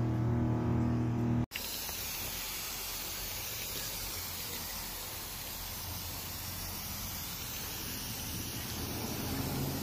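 Music with held tones for about the first second and a half, cut off abruptly. Then the steady hiss of a hand-pump pressure sprayer misting cleaning solution onto fabric sofa upholstery.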